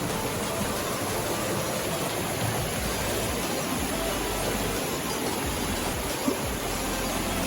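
Steady rushing of stream water, with one small knock about six seconds in.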